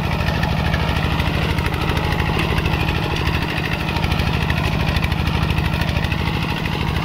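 Two-wheel walking tractor's single-cylinder diesel engine running steadily under load as it pulls a disc plough through dry soil, with a fast, even chug.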